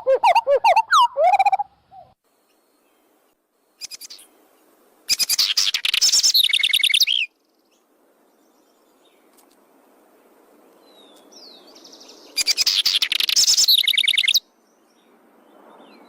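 Birds calling. A fast run of repeated pitched notes stops about two seconds in, then two loud chattering bursts of about two seconds each come around five and twelve seconds in, with a few faint high calls between them.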